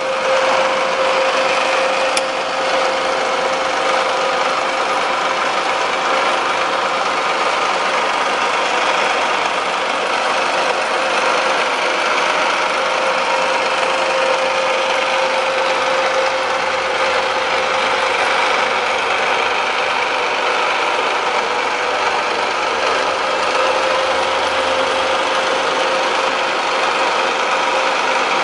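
REFORM pillar drill's motor and spindle drive running without load: a steady mechanical hum with one strong, even tone, and a short click about two seconds in.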